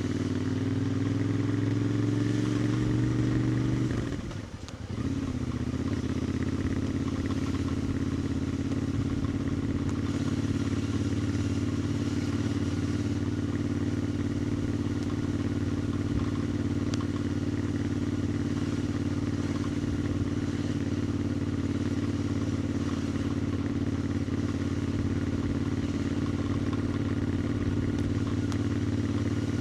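Royal Enfield Interceptor 650's 648 cc parallel-twin engine pulling with rising revs, then a brief break about four seconds in as the rider shifts gear. After that it settles into a steady cruising note that holds at constant revs.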